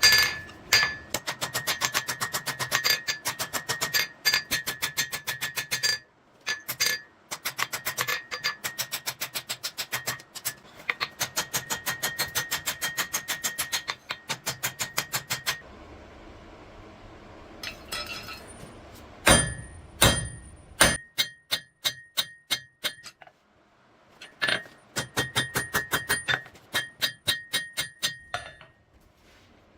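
Hand hammer striking hot steel on an anvil in fast, even runs of blows, the anvil ringing with each strike. The runs stop for short pauses, and the loudest, heaviest blows come about two-thirds of the way through.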